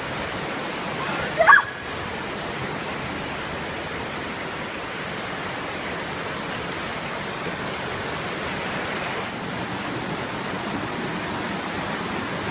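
Steady rushing of floodwater, with a brief high-pitched cry about a second and a half in.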